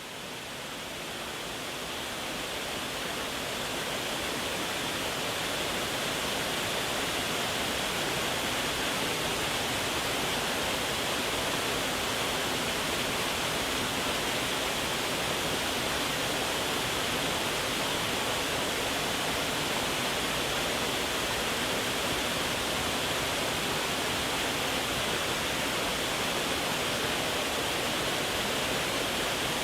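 Steady, even rushing of falling water from a waterfall, fading in over the first few seconds and then holding constant.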